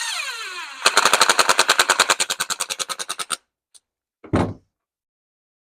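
Cordless impact driver spinning up with a brief whine that falls in pitch, then hammering rapidly for about two and a half seconds as it drives a screw into the trimmer's plastic housing, with a short second burst about four and a half seconds in.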